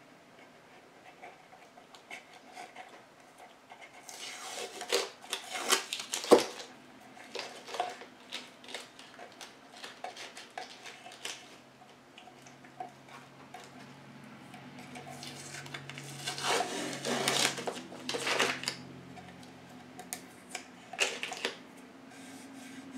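Blue painter's tape being peeled off the edges of a cradled wood panel and crumpled, an X-Acto knife lifting the stuck bits. It comes in scratchy ripping bursts a few seconds in and again past the middle, with a sharp tap about six seconds in and small handling knocks between.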